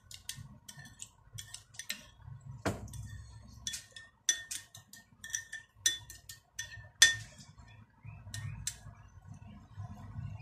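A metal spoon stirring sweet-and-sour sauce in a porcelain bowl, clinking against the bowl's sides again and again at an uneven pace, with one sharper clink about seven seconds in.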